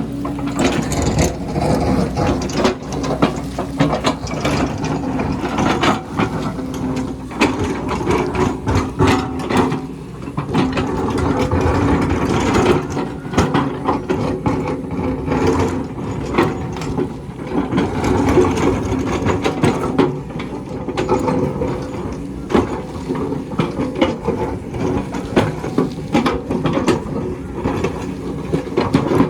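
Excavator at work: its diesel engine runs steadily under load, with frequent metallic clanks and knocks, typical of the bucket and tracks working on rock.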